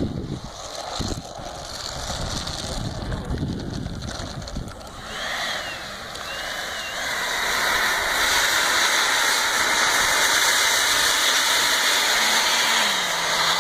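90mm electric ducted fan on an 8S setup spooling up: a rushing, jet-like hiss with a wavering whistle builds from about five seconds in, then holds loud and steady. Low rumbles and thumps come before it.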